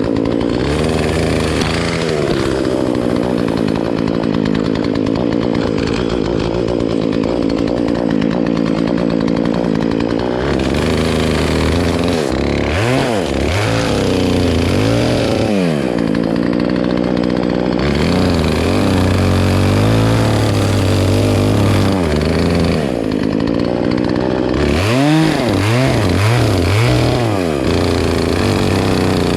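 Chainsaw engine running steadily, with bursts of quick revving up and down about halfway through and again near the end.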